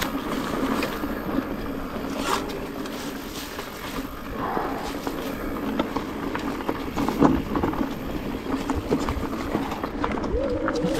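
Mountain bike rolling over a rocky dirt trail: a continuous rumble from the tyres on stones, with the bike rattling and knocking over the bumps.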